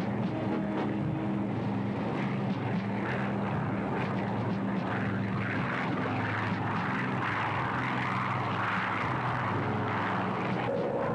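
Fairchild C-119G Flying Boxcar's twin radial piston engines and propellers running with a steady low drone. A rushing noise builds over it through the middle.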